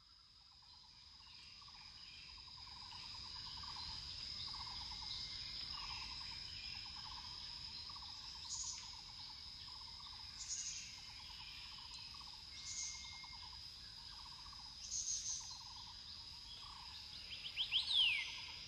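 Insect and bird chorus: a steady high-pitched insect drone with a repeated pulsing trill beneath it, and short bird chirps about every two seconds, fading in over the first few seconds. Near the end a call sweeps down in pitch.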